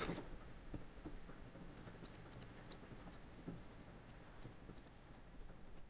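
Faint, scattered light clicks and ticks over low room noise.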